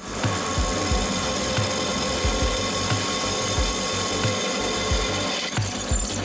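Electric drill boring through a metal plate: the motor runs steadily with a whine while the bit cuts, with uneven low thuds underneath. The sound changes shortly before the end.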